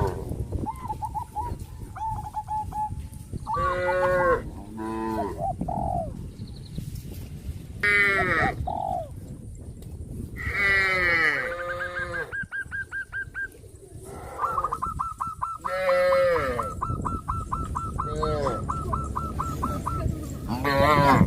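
Farmyard animals calling: a string of separate drawn-out calls every few seconds. From about the middle onward a rapid, even run of high pulses at one pitch sounds alongside them.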